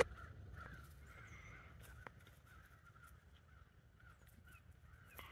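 Faint, steady chorus of many crows cawing in the distance, the calls overlapping without a break. A single sharp click right at the start is the loudest moment.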